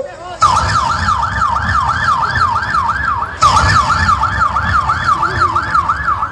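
Emergency vehicle siren in a fast yelp, its pitch sweeping up and down about three times a second over a low rumble. It starts about half a second in, breaks off and starts again louder about three seconds in.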